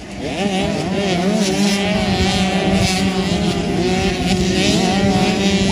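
A pack of motocross dirt bikes racing past, several engines revving at once with their pitches rising and falling. The sound swells about half a second in.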